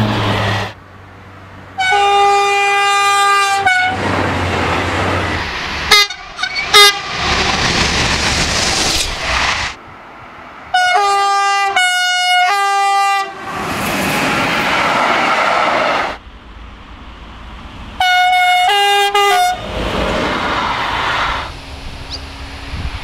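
Train horns sounding as trains pass. There is a long blast about two seconds in, brief toots around seven seconds, a run of short blasts around eleven to thirteen seconds and a few more short blasts near nineteen seconds. Between the blasts there is the loud rushing noise of the passing trains.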